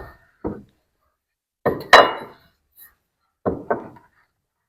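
Bostitch pneumatic coil siding nailer firing nails into wooden boards: five sharp shots, mostly in quick pairs, each with a short ring.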